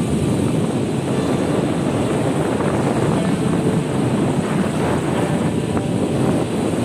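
Steady rush of sea water and wind from a ship underway on a calm sea, with wind buffeting the microphone.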